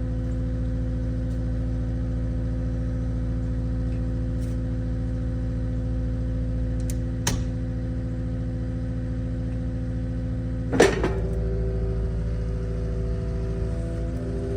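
An engine idling steadily, with a sharp knock about halfway through and a louder bang about three-quarters of the way in, after which the engine note changes slightly.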